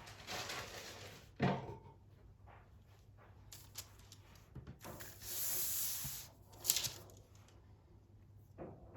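Quiet household handling noises: a knock about a second and a half in, a hiss lasting about a second near the middle, then a sharp click, with faint small clicks between.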